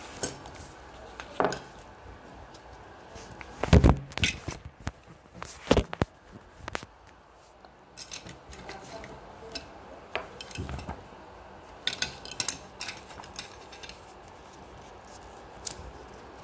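Plastic Playmobil toy parts being handled on a table: scattered clicks, knocks and clatters, the two loudest about four and six seconds in.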